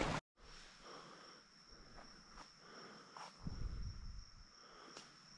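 Faint, steady, high-pitched insect trill, typical of crickets, holding one pitch. There is a soft low thumping of movement about three and a half seconds in.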